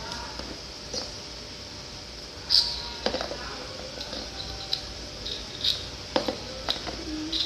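Handling noise: scattered small clicks and taps as items are handled while making slime, the sharpest about two and a half seconds in.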